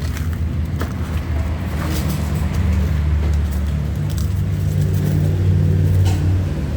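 Electric motor driving a two-speed hydraulic pump, running with a steady low hum, with a few sharp clicks over it.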